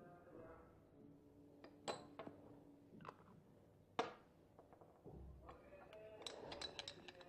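Faint clinks of glass containers being handled: single sharp taps about two and four seconds in, then a quick run of small clinks near the end.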